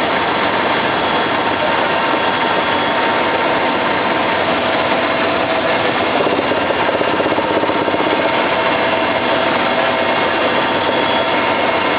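Helicopter engine and rotor noise heard from on board: a loud, unbroken drone with a steady whine through it.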